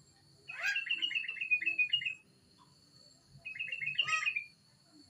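A songbird singing two quick phrases of rapid, repeated chirping notes: one starting about half a second in and lasting under two seconds, the second, shorter, near the end.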